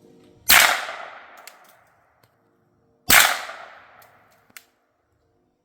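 Two suppressed 9mm shots from a CZ Scorpion Evo 3 S1 carbine fitted with a Dead Air Mojave 9 suppressor in its short configuration, run wet with water inside, about two and a half seconds apart. Each is a sharp report whose echo dies away over about a second.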